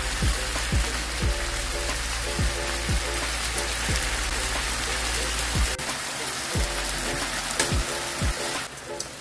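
Blue marlin steaks sizzling as they fry in oil in a pan: a steady hiss that drops away near the end. A background music beat with deep, repeated drum hits plays over it.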